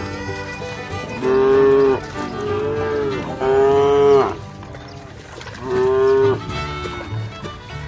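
Cattle mooing: four drawn-out moos, the second one softer, with music playing underneath.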